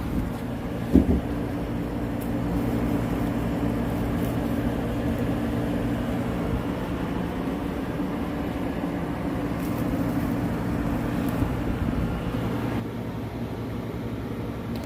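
Portable air conditioner running: a steady hum of compressor and fan, with a short knock about a second in. Near the end the higher hiss drops away and it gets a little quieter.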